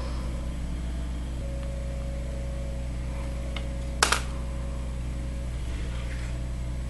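Steady low electrical hum of room and recording noise, with one short sharp click about four seconds in.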